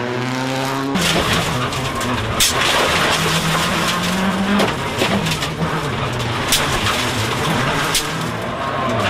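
Mitsubishi Lancer WRC05 rally car's turbocharged four-cylinder engine driven hard at stage pace, heard onboard, its pitch rising and dropping with the gear changes, over loud road and tyre noise and a few sharp cracks. About a second in, the sound cuts from the car approaching and revving, heard from the roadside.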